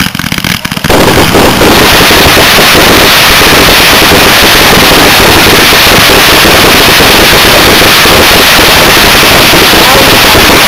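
Aerial fireworks display: a few separate bangs, then from about a second in a dense, continuous rapid crackle of many shells and crackling effects bursting together, very loud.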